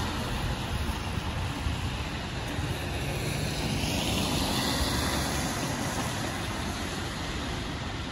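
Street traffic on wet asphalt: car tyres hissing on the wet road over a low rumble of engines. The hiss swells and fades about four seconds in as a car passes.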